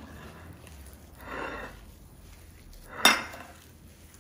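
Hands kneading and squishing mashed potato on a ceramic plate, with a soft swell of squishing about a second in and a single sharp knock against the plate about three seconds in.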